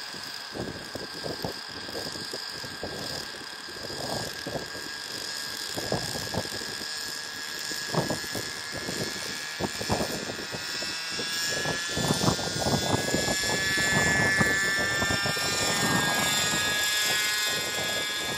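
Radio-controlled Raptor model helicopter's nitro glow engine and rotors running, spooling up: the engine whine rises in pitch over the second half as the helicopter lifts off and climbs away. Irregular low buffeting of wind on the microphone runs under it.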